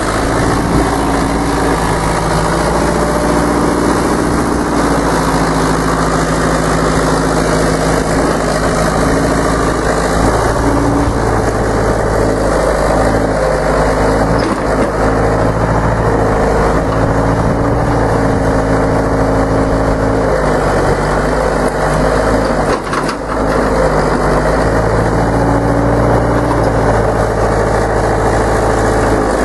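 1974 Hymac 570 excavator's diesel engine running steadily while the machine digs, its note stepping up and down as the hydraulics take and release load.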